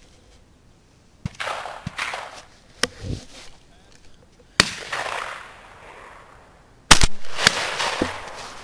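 Shotgun shots: a loud one a little past halfway, then the loudest shot about seven seconds in with another half a second later, each trailing off in a short echo. Quieter sharp cracks and rustling come before them.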